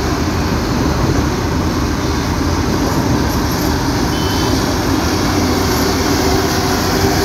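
Engine and road noise heard from inside a moving auto-rickshaw's open cabin, running steadily, with city traffic and a bus close ahead.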